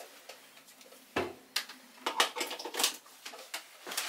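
Clicks and knocks of a plastic electric coffee grinder being handled and plugged in: one sharp knock about a second in, then a quick run of clicks, with no motor running.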